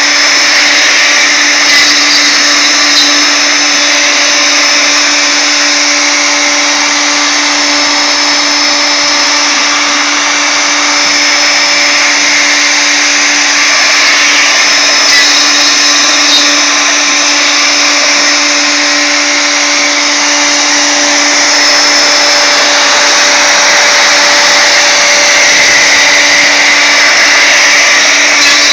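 CNC router's wood-router spindle running at speed while its ball-nose bit carves softwood on a finishing pass: a steady motor whine over a constant cutting hiss, with only small swells in loudness.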